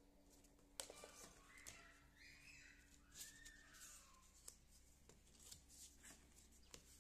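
Faint handling of paper pattern pieces and a pen on a work table: a sharp tap about a second in, then light scratches, rustles and ticks. A few faint rising and falling whistle-like sounds come in the middle.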